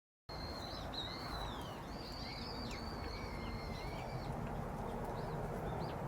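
Small birds calling with high chirps and short downward-sweeping notes, several in quick succession, over a steady low outdoor background hiss.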